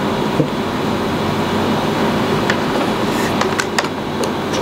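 A steady background rumble of unclear source, with a few light clicks about three to four seconds in from buttons being pressed on an Owon XDM2041 bench digital multimeter's front panel.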